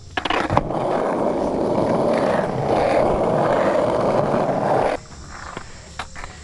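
Skateboard wheels rolling over rough, cracked asphalt, a steady rumble that stops abruptly about five seconds in as the ride ends.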